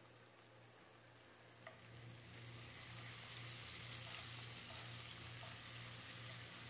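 Ginger-garlic paste frying in hot oil with whole spices. It sizzles faintly at first, then louder from about two seconds in as it is stirred through the oil. A steady low hum runs underneath.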